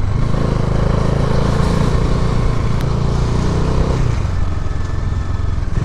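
Bajaj Dominar 400's single-cylinder engine and exhaust running under way, a steady hum with wind rush over it. The engine note changes about four seconds in.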